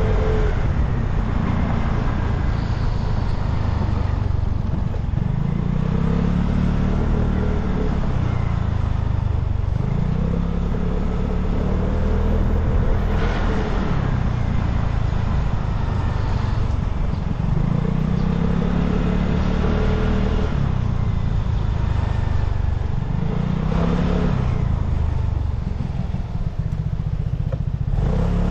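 Vespa scooter engine under way, its pitch rising as it speeds up and falling back as the throttle eases, about four times, over a steady low rush of wind on the microphone.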